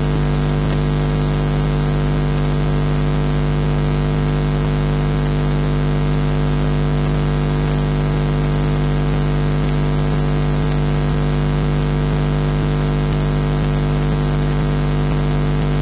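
Loud, steady electrical hum and buzz on a nest camera's audio feed, with irregular sharp crackles in the high range: interference on the line, not sounds from the sitting bird.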